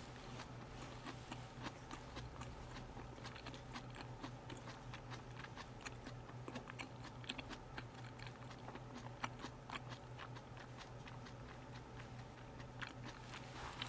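Close-miked chewing of sushi: soft, irregular wet mouth clicks and smacks, faint, over a steady low hum.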